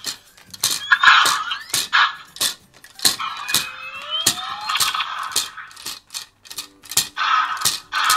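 Electronic sound effects from an Allspark Tech Optimus Prime toy's small built-in speaker as the toy is moved: rising electronic swoops and bursts of hiss, amid many sharp plastic clicks.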